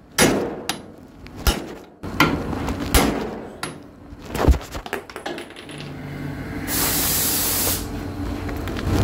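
Metal tools and suspension parts clinking and knocking several times, then a hiss of spray lasting about a second near the end.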